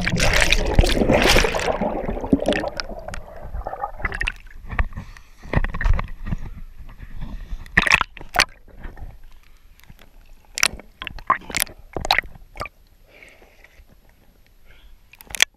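Water sloshing and splashing around a waterproof action camera dunked in a river, loudest in the first two seconds. Then muffled underwater gurgling broken by scattered sharp knocks and clicks on the camera.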